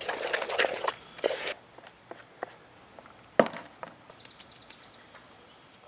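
Wooden spoon stirring in a plastic mixing bowl: a quick scraping clatter for about a second and a half, then scattered single knocks, the loudest about three and a half seconds in.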